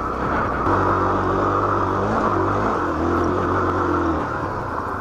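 Honda XR 250 Tornado's single-cylinder four-stroke engine running as the bike is ridden, under a steady rush of wind noise.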